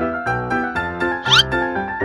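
Background piano music with a steady run of notes. About one and a half seconds in there is a short, high, rising squeal, the loudest moment.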